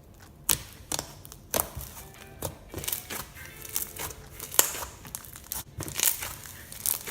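Blue icy slime mixed with instant snow being squished and pressed by hand, giving irregular crunchy crackles and pops, the loudest a little past the middle.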